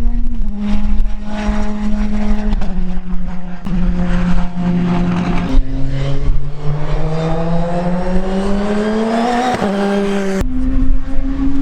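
Praga R1 T race car engine running hard on track: its pitch holds, drops in steps three times, then climbs steadily for about four seconds under acceleration before a quick gearchange near the end.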